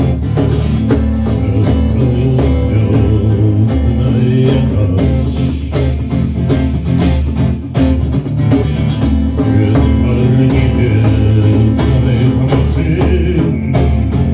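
Live band music led by guitar over a strong, sustained bass line, with frequent percussive hits.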